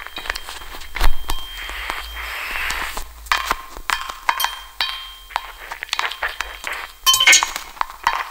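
Experimental improvised sound piece of dense, irregular clinking and clattering of small hard objects. Short, steady high tones sound several times among the clinks.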